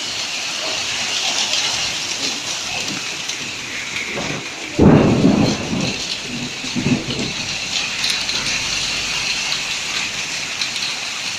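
Heavy rain and hail falling in strong wind, a steady dense hiss. About five seconds in comes a sudden loud low burst lasting about a second, and a smaller one about two seconds later.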